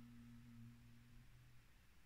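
The end of a chanted Om: a low, steady hummed 'mmm' fading out during the first second and a half, leaving near silence.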